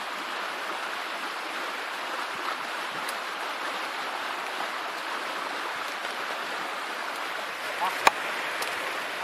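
Steady rushing of a river, with a single sharp click about eight seconds in.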